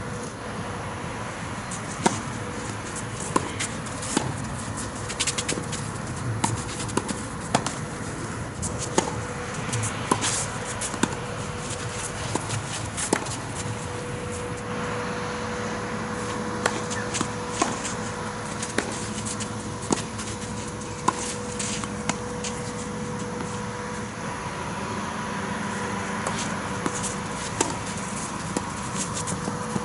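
Tennis balls being hit back and forth in a rally: sharp racket strikes and ball bounces about once a second, over steady outdoor background noise with a faint steady tone.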